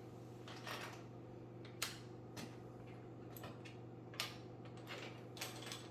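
Quiet, scattered clicks and short rustles of plastic LEGO pieces and packaging being handled, about half a dozen separate sounds.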